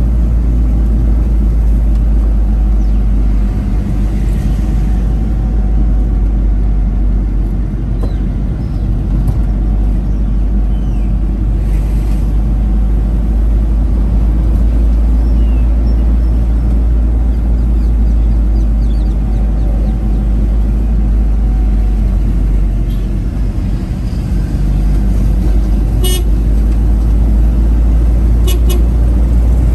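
Steady low rumble of a car driving along a road, heard from inside the cabin. Near the end come a few short vehicle-horn toots.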